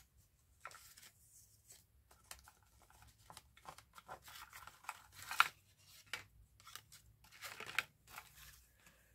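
Paper ephemera rustling and shuffling as a stack is leafed through: a run of short, irregular rustles, with one sharper rustle about five seconds in.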